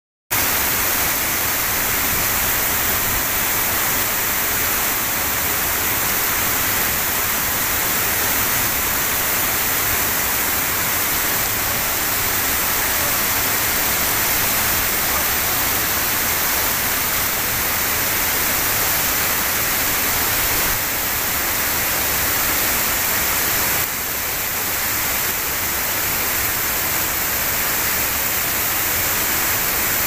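Waterfall falling in thin streams and sheets over mossy rock ledges onto boulders: a loud, steady rushing hiss of pouring and splashing water. It cuts in abruptly at the start and dips slightly in level twice, about two-thirds of the way through.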